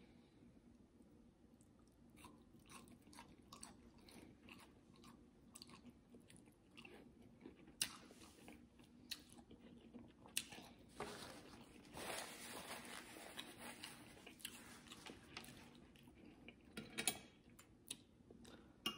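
Faint close-miked chewing of roasted asparagus, with scattered small mouth clicks and a busier stretch of chewing about twelve seconds in.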